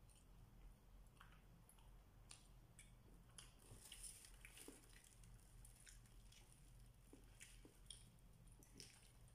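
Faint eating sounds: chewing, and scattered small clicks and crinkles of aluminium foil and a plastic bag as flatbread and food are picked up by hand, over a low steady hum.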